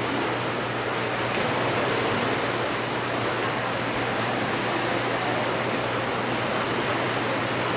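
Gentle ocean surf: small waves washing onto a beach in a steady, even hiss with no distinct breaks.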